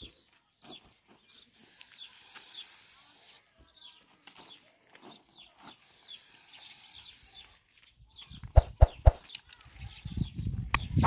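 Aerosol spray-paint can hissing in two bursts of about two seconds each, with hens clucking in the background. Near the end comes a run of loud low knocks and thumps.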